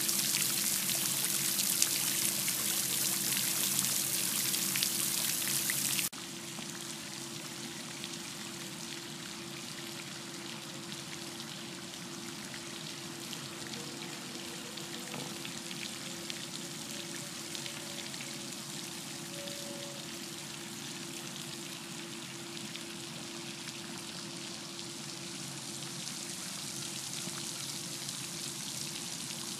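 Floating spray fountain splashing steadily into a reflecting pool, a hissing wash of falling water. About six seconds in it drops abruptly to a quieter, more distant wash, with a low steady hum beneath throughout.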